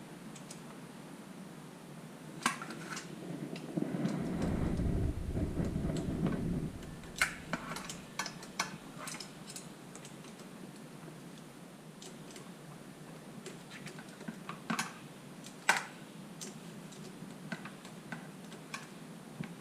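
Scattered light metallic clicks and clinks of small hand tools working a lock nut onto a fender bolt during bike assembly, with a few seconds of low rumbling handling noise about four seconds in.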